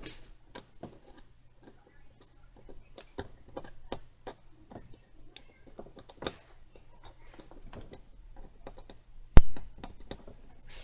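Steel tweezers and small metal parts of a Marryat MR7A fly reel's click mechanism clicking and tapping as the mechanism is greased and reassembled: irregular light clicks, with one sharp, much louder knock about nine seconds in.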